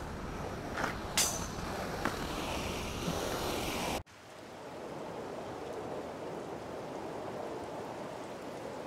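Inline skate wheels rolling over rough pavement, a low rumble with a few sharp clicks and scrapes, the loudest about a second in. About four seconds in the sound cuts off abruptly and gives way to a steady, even outdoor hiss.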